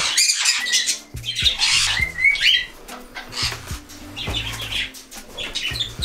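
Cockatiels squawking and chirping, loudest in the first couple of seconds with a few short rising calls, then softer scattered chirps.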